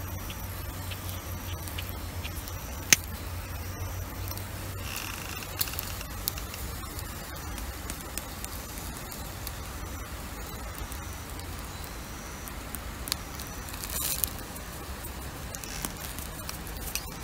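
Chicken-and-leek yakitori skewers grilling over charcoal, with light crackling and scattered sharp pops, the loudest about three seconds in, while salt is shaken onto them. A short noisy burst comes about fourteen seconds in, over a low steady rumble that is stronger in the first five seconds.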